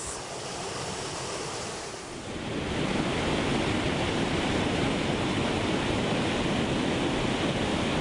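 Steady rush of a waterfall and fast-flowing stream, growing louder about two seconds in and then holding even.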